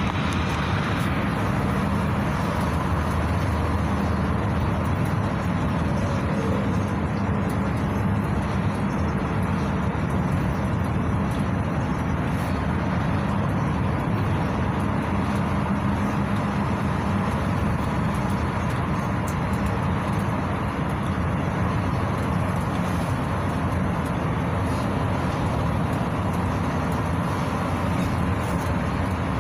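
Steady drone of a GAZelle Next A64R45 minibus heard from inside the passenger cabin: its Evotech engine running along with tyre and road noise while it drives at a constant speed.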